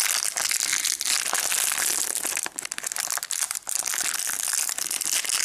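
Thin clear plastic packaging bag crinkling and crackling as fingers pull it open, with a couple of brief lulls near the middle.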